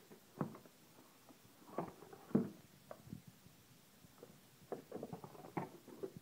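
Irregular light knocks, taps and rustles of handling, the loudest knock about two and a half seconds in and a quick run of them near the end; no power tool is running.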